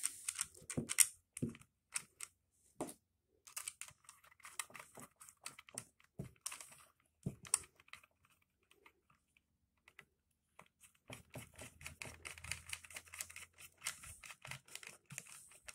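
Small clicks, taps and rattles of bolts and a screwdriver being handled as a holster hanger is bolted back together. The taps come irregularly, thin out near the middle, and crowd together over the last few seconds.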